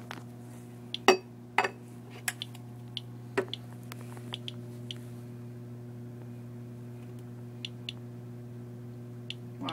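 Handheld Geiger counter (Inspector EXP) being moved onto a piece of uranium glass. Two sharp knocks of handling about a second in, then sparse, irregular clicks of detected radiation. A steady low hum runs underneath.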